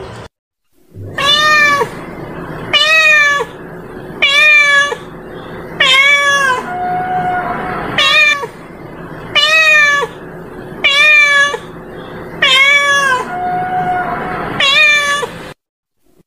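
Orange-and-white domestic cat meowing over and over: about nine loud meows, roughly one every second and a half, each rising then dipping slightly in pitch.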